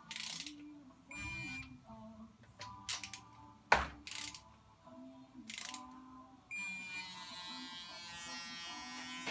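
A small electric power tool motor buzzing in a short run and then steadily through the last few seconds, running in the water pump bolts. Sharp tool clicks and knocks come in between, the loudest a knock a little under four seconds in.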